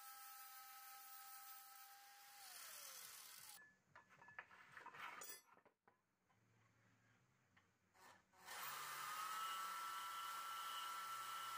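Angle grinder running on a steel bar with a steady whine that falls in pitch and dies away as it winds down, about two and a half seconds in. A few seconds of faint clicks and handling follow. Near the end a Milwaukee portable band saw starts and runs steadily, cutting through a metal rod.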